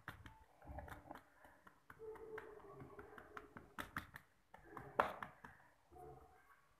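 Fingers pressing and patting the top layer of a stuffed aloo paratha down onto the worktop: faint, irregular soft taps and clicks, with one sharper tap about five seconds in.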